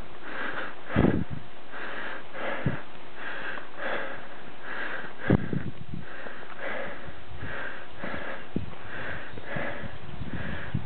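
A walking hiker's heavy, rhythmic breathing close to the microphone, about one and a half breaths a second, with a few dull knocks of footsteps or camera handling.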